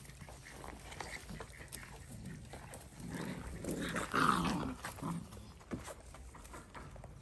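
Dalmatian puppies making small vocal noises, loudest about three to five seconds in.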